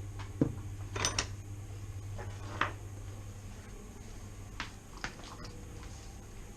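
Hand tools and metal engine parts clinking and knocking as they are handled: about six separate light strikes, spread out, over a steady low hum.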